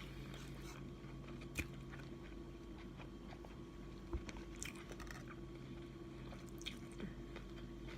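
Faint chewing of a sub sandwich on crusty bread, with a few soft mouth clicks, over a steady low hum.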